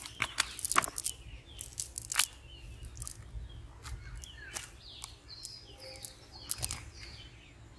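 Cast net rustling and crackling as caught fish are picked out of the mesh, with scattered sharp irregular clicks. Birds chirp in the background.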